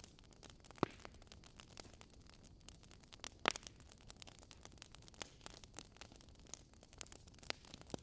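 Logs burning in a fireplace, crackling: a steady scatter of small ticks and pops with a few louder snaps, the loudest about three and a half seconds in.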